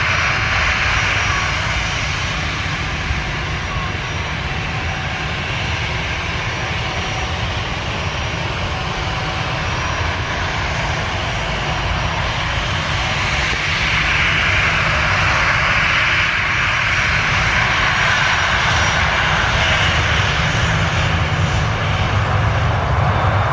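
Airliner engines running at take-off power, a continuous deep rumble with a broad rushing hiss that grows louder over the second half.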